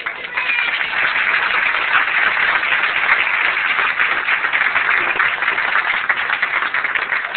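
Audience applauding: many hands clapping at once, rising quickly at the start and then holding steady.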